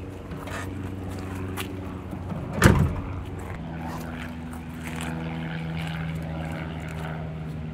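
Rear hatch of a Jeep slammed shut once, a single loud bang about two and a half seconds in, after a couple of fainter clicks of the latch and glass being handled. A steady low hum runs underneath.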